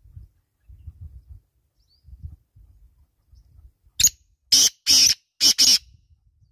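Black francolin calling: a short note about four seconds in, then three loud, harsh notes in quick succession.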